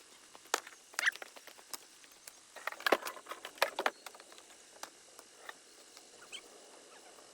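Scrap wood knocking and clattering as pieces are handled and tossed, a scattering of sharp clicks with a quick flurry about three seconds in.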